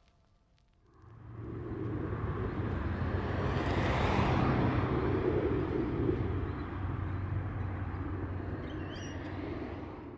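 A steady low rumble with a hum underneath, like a passing vehicle or aircraft. It swells in about a second in, is loudest around four seconds in, and cuts off at the end.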